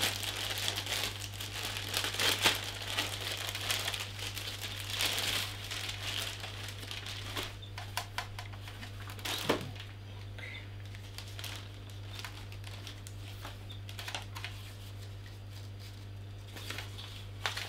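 Thin clear plastic bag crinkling and crackling as it is pulled open and rummaged through, then quieter rustles and the odd click as a paper manual is handled from about eight seconds in. A steady low hum runs underneath.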